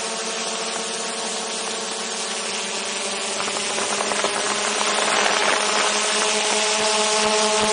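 DJI Mavic 2 Zoom quadcopter's propellers and motors humming steadily in flight, picked up close by a camera slung beneath it. About three and a half seconds in a rushing noise joins and the sound grows louder.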